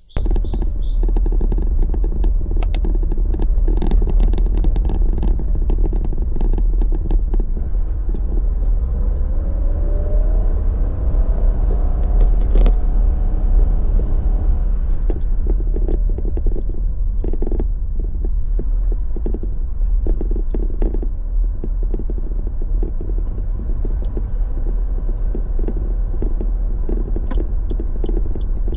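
Motor vehicle engine running with a steady low rumble, its pitch rising for a few seconds partway through as it speeds up, with scattered rattles and clicks.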